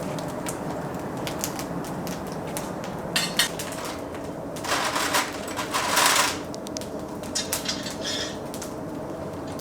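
Kitchen clatter: light clicks and knocks of utensils and dishes over a steady background hum. About five seconds in there is a louder rush of noise lasting a second or so.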